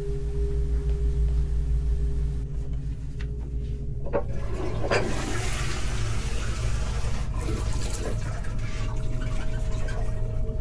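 A toilet flushing: a rush of water lasting about three seconds near the middle, with a few sharp clicks at its start, cutting off suddenly. A low steady hum runs underneath.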